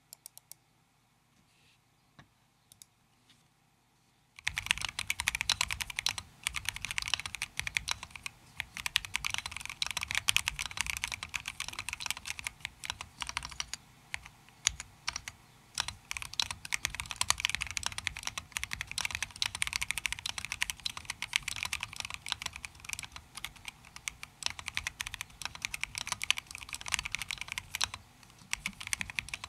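Typing on a Keychron Q2 Pro mechanical keyboard with K Pro Red linear switches and KSA-profile keycaps: fast, continuous keystrokes. A few faint clicks come first, and the typing starts about four and a half seconds in.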